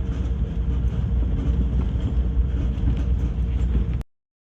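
Steady low rumble of a vehicle driving along, with a faint constant hum over it; it cuts off suddenly near the end.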